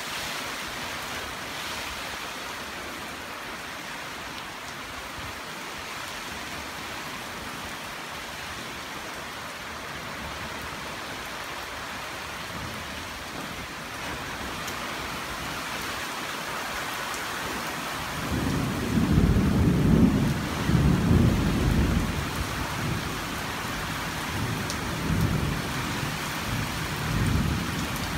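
Heavy rain of a thunderstorm hissing steadily. About eighteen seconds in, a loud, low rumble of thunder rolls in, swelling and fading in waves until the end.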